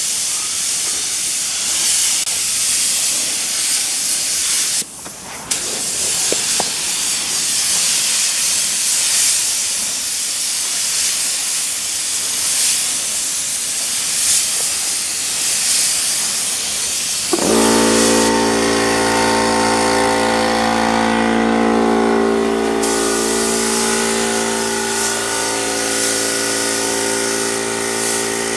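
Gravity-feed paint spray gun hissing steadily as it sprays paint, with a short break about five seconds in. About two-thirds of the way through, a steady machine hum with several even tones starts suddenly and runs on under the hiss.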